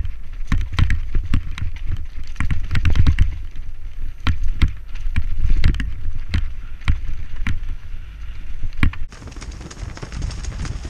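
Mountain bike descending a rough forest trail at speed, heard from a helmet camera. Wind buffets the microphone in a steady low rumble, while the bike rattles and knocks over the bumps and roots. The wind rumble eases about nine seconds in.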